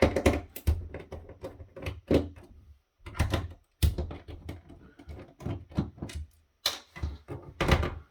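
Irregular clicks and knocks of a plastic device being handled and set down on a work surface, a few of them with a dull thud.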